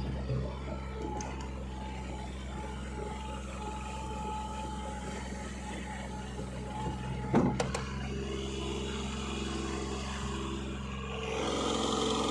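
Backhoe's diesel engine running steadily, with a sharp clank about seven seconds in and the engine growing louder near the end.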